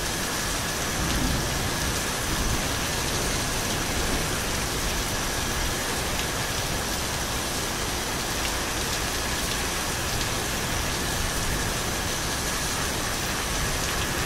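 A steady, even hiss like heavy rain, with faint high steady tones running through it.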